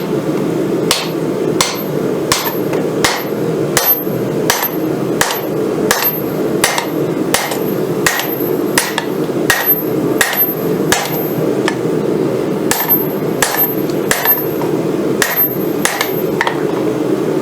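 Hand hammer striking hot rail-spring-clip steel on an anvil in steady blows, about three every two seconds, with a short high ring after many of them, as the blade is forged to shape. A steady low rush runs underneath.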